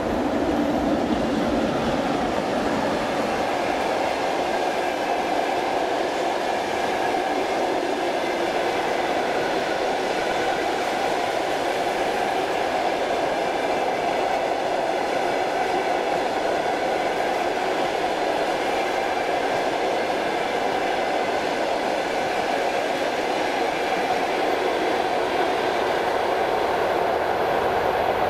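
Steady running noise of trains: a locomotive standing at the head of a freight train and a suburban electric multiple unit running past, with some wheel clatter.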